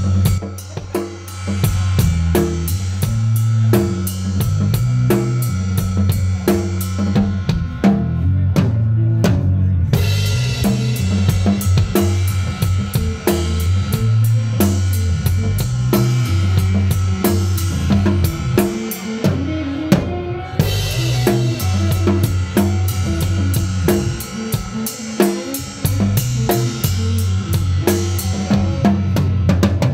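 Live band playing heavy music, heard from beside the drum kit: a Mapex kit's bass drum, snare and cymbals hit hard over sustained low bass and guitar notes. The cymbals drop out briefly twice.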